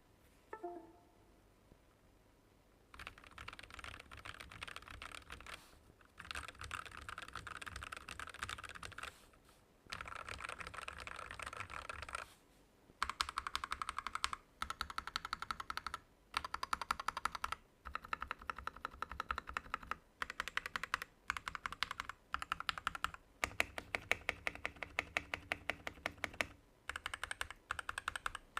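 Mechanical keyboard with Gateron Yellow linear switches being typed on quickly, starting about three seconds in and going in runs of a couple of seconds broken by short pauses.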